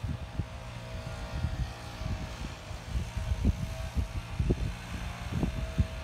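Wind buffeting a phone microphone in irregular gusts, over a steady drone of a distant engine.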